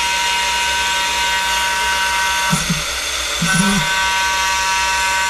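CNC mill's spindle and cutter milling a carbon-fibre sheet: a steady high-pitched whine over a hiss of cutting. The whine breaks off for about a second around the middle, with a couple of short low swoops, then carries on.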